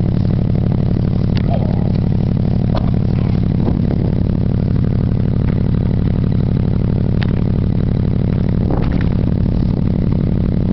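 Geo Metro engine idling steadily, with no revving. A few short clicks and knocks from handling about 1.5, 3, 7 and 9 seconds in.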